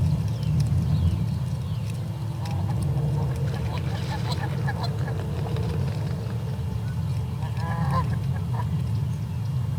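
A steady low rumble from the outdoor nest-camera microphone, with short scattered bird calls over it, clustered around four seconds in and again near eight seconds.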